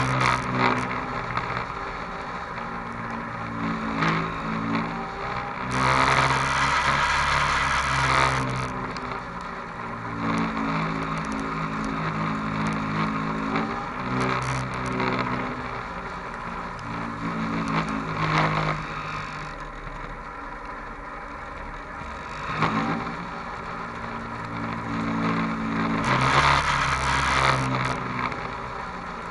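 Onboard sound of a vehicle engine driving slowly over a rutted, muddy dirt track, its pitch rising and falling with the throttle and pulling harder twice, a few seconds in and near the end.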